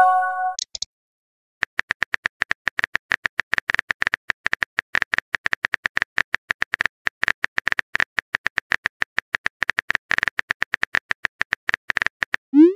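Rapid, even clicks of a phone keyboard's typing sound effect, about six or seven a second, as a chat message is typed out. A short electronic chime sounds at the start, and a brief rising tone comes at the very end.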